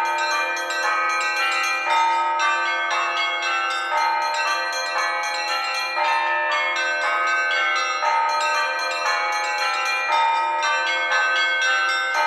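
Orthodox church bells rung by hand: several bells struck in a quick, continuous rhythm, their tones overlapping and ringing on.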